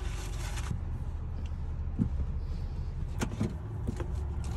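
Low, steady rumble of a car heard from inside its cabin, with a short paper rustle at the start and a few light clicks and knocks.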